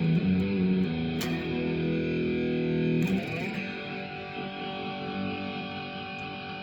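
Electric guitar played through a Marshall Code 25 amp with light distortion: held notes ring for about three seconds, then a new chord is struck and left to sustain and slowly fade.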